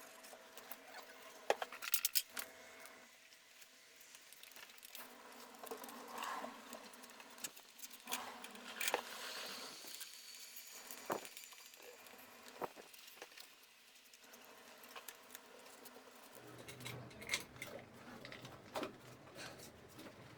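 Scattered light clicks, taps and knocks of hand work with timber strips and workshop tools, over quiet room tone. A low hum comes in about three-quarters of the way through.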